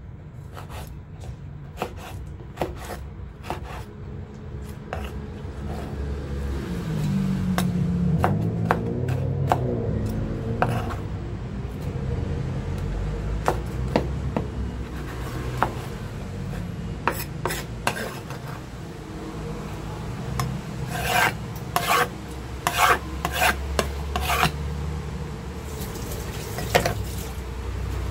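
Cleaver sawing through tough pineapple rind on a wooden cutting board: a rasping scrape, broken by repeated knocks of the blade on the board.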